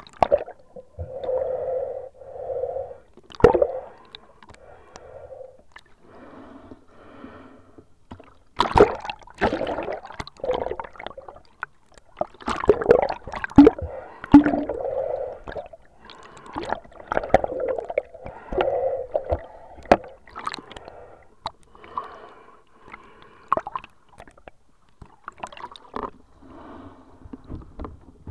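Underwater sound through a waterproof action camera's housing: muffled sloshing and bubbling water in irregular surges, with scattered sharp knocks against the case.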